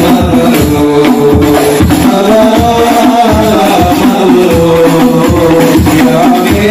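Hadroh ensemble performing sholawat: several men singing together into microphones over a steady beat of hand-struck frame drums (rebana).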